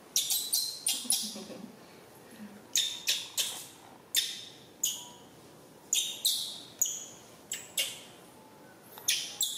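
A run of short, high-pitched chirps and squeaks, coming in quick clusters of two or three with short gaps between, about a dozen in all.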